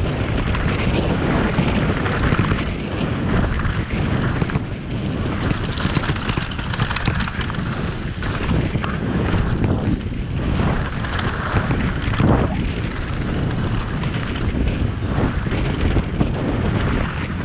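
Wind noise on a rider-mounted camera's microphone while a Santa Cruz V10 downhill mountain bike runs fast down a dry dirt trail. Tyres crunch over the dirt, and the bike knocks and rattles over the bumps throughout.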